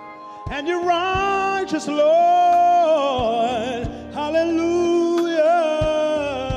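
A man singing gospel-style solo into a microphone. He holds long notes with a wide vibrato and slides between pitches.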